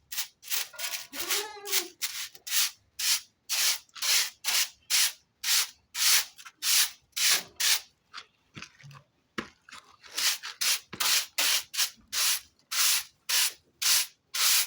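Broom sweeping a floor in quick strokes, about three swishes a second, with a short pause a little past halfway.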